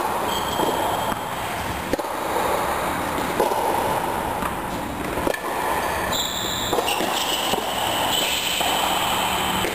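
Tennis balls struck by rackets in a rally on an indoor court: sharp single hits about every one and a half to two seconds, echoing under the dome, over a steady background noise.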